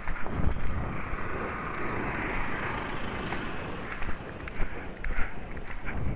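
Horse galloping on a cross-country course, hoofbeats under a steady rush of wind on the microphone.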